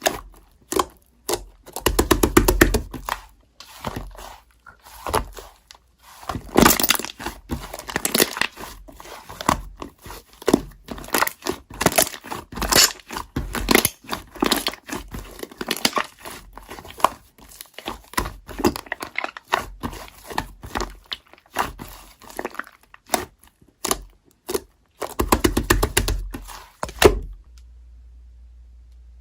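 Close handling noise: irregular knocks, clicks and crinkling rustles, with a few heavier thumps, stopping abruptly near the end.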